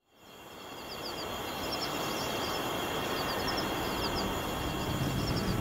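Outdoor ambience fading in, with small birds chirping in quick runs of high notes several times over a steady background hiss.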